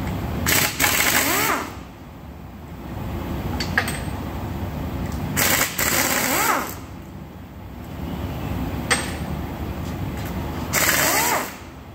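Air-powered wrench run in three bursts of about a second each, roughly five seconds apart, each with a rising whine as it spins up, backing out the end-bell bolts of a three-phase electric motor. A steady low rumble carries on between the bursts.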